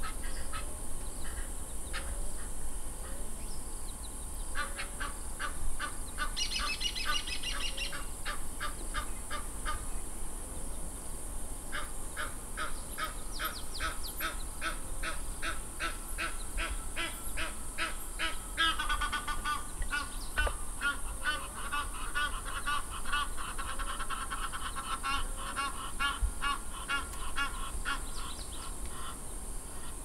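Egyptian geese calling in long runs of rapid, harsh honks, about three or four a second, in several bouts with short pauses between them.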